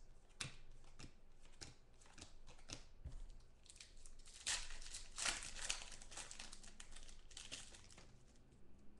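Foil wrapper of a trading card pack crinkling and tearing as it is opened by hand, with cards rustling and clicking in between; the loudest rustling comes about halfway through.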